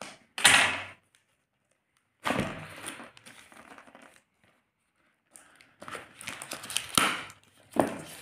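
Clear plastic wrapping crinkling and tearing as it is pulled off a small cardboard box, in three bursts with short pauses between.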